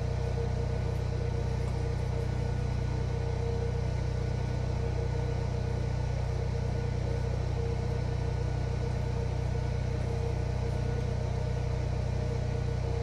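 Backup generator engine running at a steady speed, a constant low hum during a power outage.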